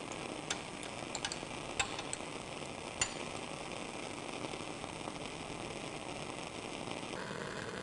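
Glassware clinking as a beaker is lifted off a lab jack and a glass measuring cylinder is set under the distillation adapter: a handful of light clinks in the first three seconds over a steady hiss.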